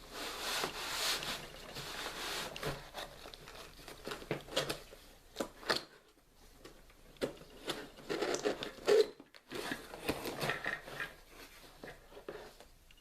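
Close handling noise: rustling and rubbing with scattered sharp clicks and knocks, pausing briefly twice.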